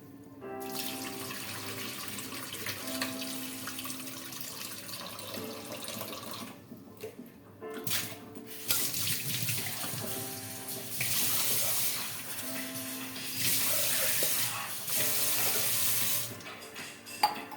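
Water running from a tap into a sink, stopping briefly about a third of the way in and then running harder for several seconds, over background music with a simple melody.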